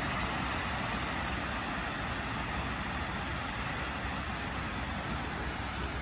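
Steady beach ambience: a constant wash of surf with wind rumbling on the phone's microphone.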